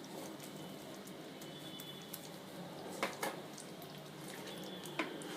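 Thick paneer gravy cooking in a pan, giving a faint bubbling and popping sizzle, with a couple of sharper clicks about three and five seconds in.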